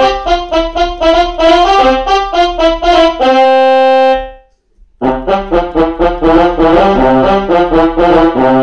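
Kawai FS660 portable keyboard playing a quick melody of short notes on a built-in voice, ending on a held note that fades out about four seconds in. After a brief pause, a second phrase of notes and chords starts about five seconds in.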